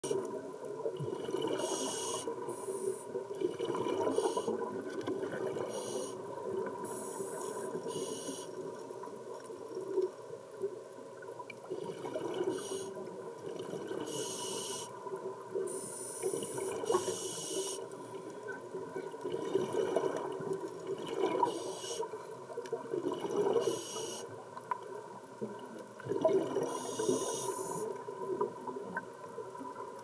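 Underwater sound of a scuba diver breathing through a regulator: short hissing inhalations every few seconds and bubbling exhalations, over a faint steady hum.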